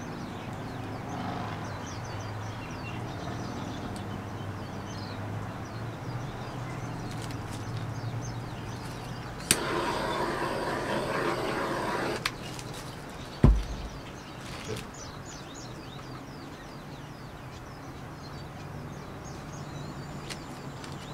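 Outdoor background of small birds chirping, with a steady low hum. About ten seconds in, a sudden burst of hissing lasts under three seconds and cuts off, followed shortly by a single dull thump.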